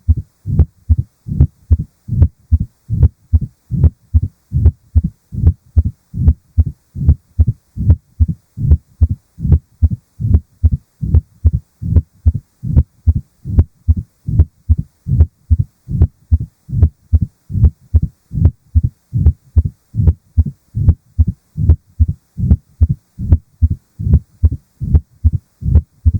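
Heart sounds heard through a stethoscope: a steady, even run of low thumps, the murmur of mitral stenosis.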